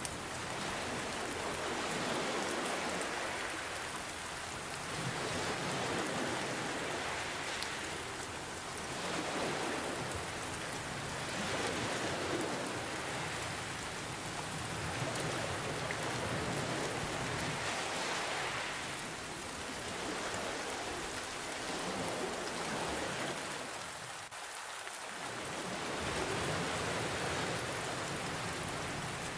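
Steady rain falling, mixed with ocean waves washing in, the sound swelling and easing every few seconds.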